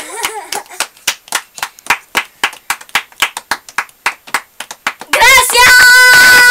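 Hands clapping in applause, separate claps about five a second. About five seconds in, loud music with held notes starts.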